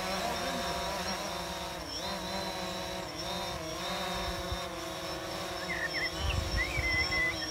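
Quadcopter drone's propellers buzzing as it hovers and manoeuvres, the pitch wavering and dipping a few times as the throttle changes. Birds chirp and wind gusts on the microphone near the end.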